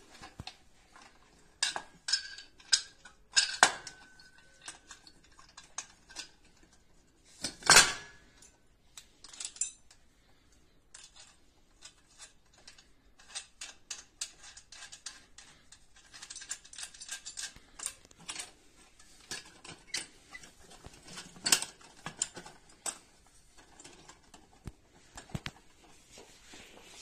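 Irregular metal clicks and clinks of small fence clamps, a bolt and chain link wire being handled against steel pipe, with a loud clank about eight seconds in and a brief metallic ring a few seconds in.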